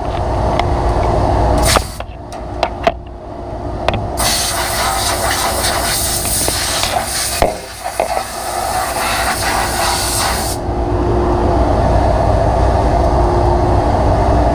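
Compressed air blowing from a nozzle into a table saw's gear area, a loud steady hiss of about six seconds starting around four seconds in and cutting off abruptly, over a steady motor hum. A few sharp knocks come before the blast.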